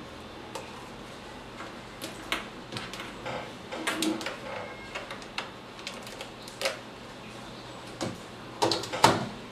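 Scattered clicks, taps and knocks of a small metal 1-watt FM transmitter and its cables being handled on a wooden desk while the leads are plugged in. A loud knock comes just before the end.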